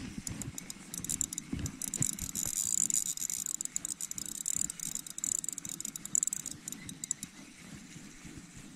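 Daiwa Exist 2000 spinning reel being cranked to retrieve line, a fast run of fine ticks with a high hiss starting about a second in.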